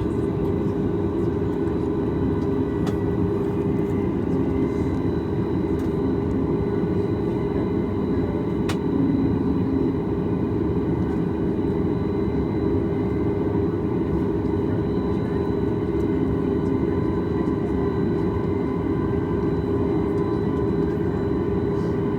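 Cabin noise of a Boeing 737 MAX 8 with its CFM LEAP-1B turbofan engines running: a steady drone with an unchanging hum over it.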